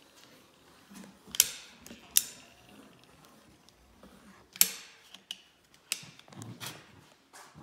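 Manual caulking gun being squeezed to push construction adhesive out of its tube: a series of sharp, irregular clicks from the trigger and the ratcheting plunger rod, the loudest about one and a half, two and four and a half seconds in.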